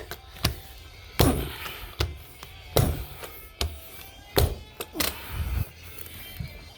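A series of about seven irregular thunks from carpet-laying tools being struck into the carpet, with music playing in the background.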